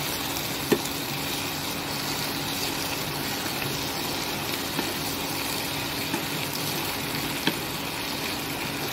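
Chilli garlic potatoes sizzling in sauce in a nonstick kadhai on high heat while a wooden spatula stirs and tosses them. A few sharp knocks of the spatula against the pan, the loudest about a second in and near the end.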